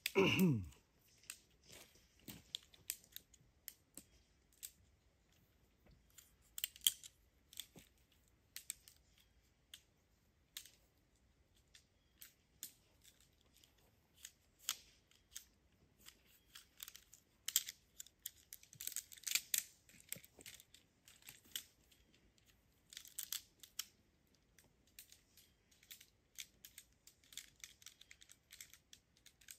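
Camping gear being handled and packed: irregular rustling, crinkling and clicking of nylon and plastic, busiest past the middle. A short sound falling in pitch comes right at the start.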